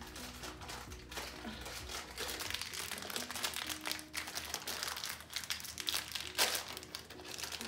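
Plastic cereal-box liner bag crinkling and crackling as it is tugged and pulled open by hand, with irregular crackles throughout.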